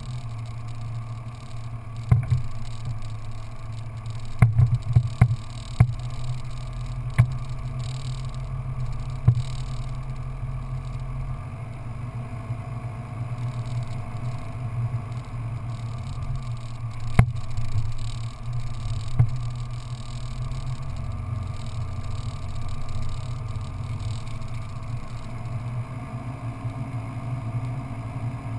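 Off-road vehicle's engine running steadily as it drives along a sandy track, with several sharp knocks scattered through.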